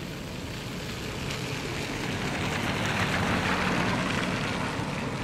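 A car driving past on a wet road, its tyres hissing on the wet pavement. The hiss swells as it nears, is loudest about three to four seconds in, then fades.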